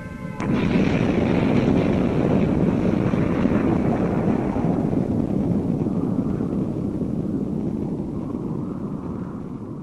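A sharp crack, then a loud rough rumble that slowly fades over several seconds.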